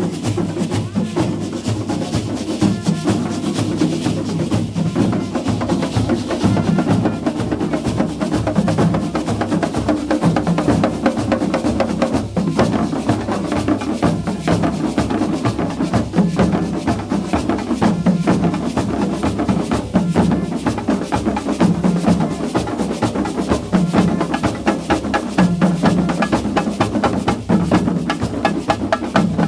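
A carnival street band of skin-headed barrel drums beaten with sticks plays a steady, driving rhythm. Rapid stick strikes ride over deep drum tones.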